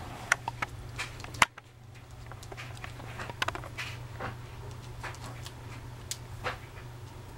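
Kitten sucking at a nursing bottle's teat: irregular soft smacking clicks, with one sharper click about a second and a half in.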